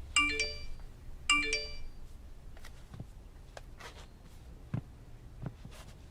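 An electronic chime, like a phone ringtone, sounds twice in quick succession, each a short bright multi-note ring. Faint scattered clicks follow.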